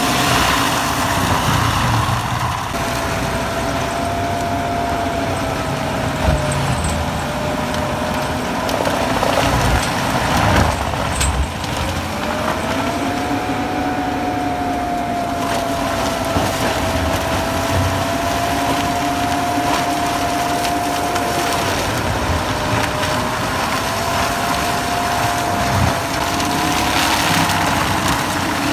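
AHWI tracked forestry mulcher working under load: its engine and spinning mulching head shredding brush and small trees. There is a steady rumble and a whine whose pitch dips and recovers several times.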